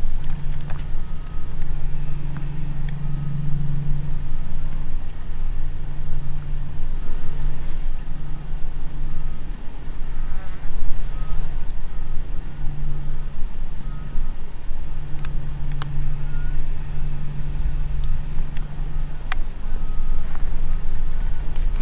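Insects chirping in a steady, evenly pulsing high trill over a low droning hum, with a few sharp clicks.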